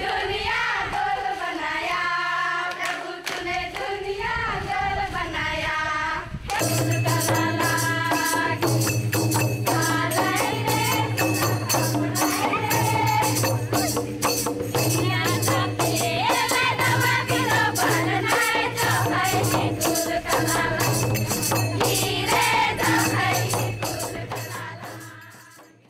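Closing music: singing opens it, then about six seconds in a fast, busy percussion beat and a steady bass come in under the singing, and it fades out at the end.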